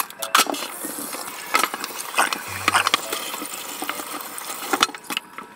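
Fast-forwarded kitchen sounds of kitchen scissors snipping and hands handling raw chicken in a stainless steel sink, a quick string of clicks and knocks, with tap water running into the sink.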